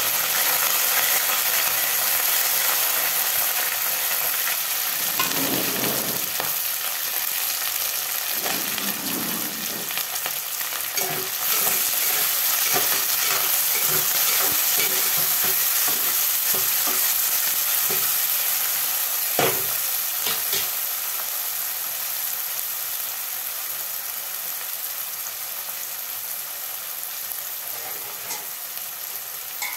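Chopped onions and green chillies sizzling in hot oil in an aluminium pot, stirred with a metal spoon that scrapes and knocks against the pot now and then. The sizzling is loudest at first and slowly dies down.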